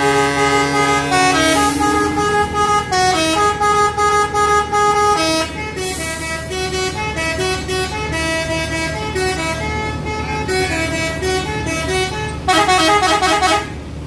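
Intercity buses' musical 'telolet' air horns playing a tune of held notes that step up and down in pitch, over the low steady hum of idling bus engines. Near the end the horn breaks into a fast warbling run of short notes, several a second.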